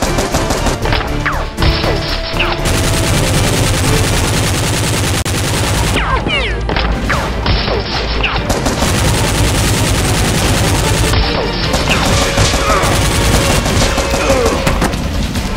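Dense, rapid gunfire sound effects in automatic bursts, added in editing to toy-blaster action, over background music.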